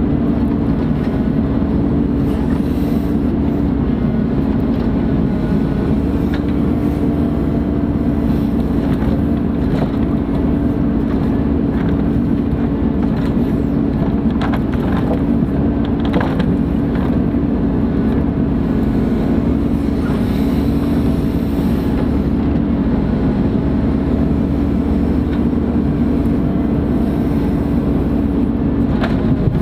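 Ponsse Buffalo forwarder's diesel engine running at a steady speed, a constant drone. A few faint knocks sound about halfway through.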